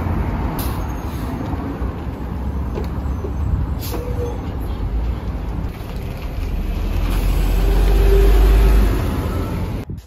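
A city bus close by at the kerb, its engine rumbling low and swelling to its loudest about eight seconds in before dropping away near the end, with a couple of short air-brake hisses.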